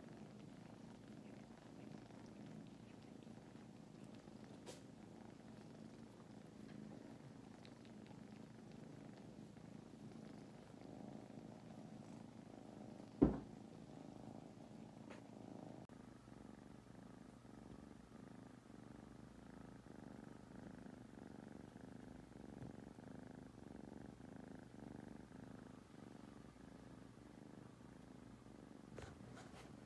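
Kittens purring, a faint, steady low rumble. A single sharp knock a little before halfway.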